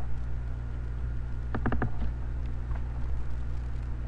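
Computer mouse buttons clicking: a quick cluster of three or four clicks about a second and a half in, as in a double-click to open a file, then a few fainter ticks, over a steady low hum.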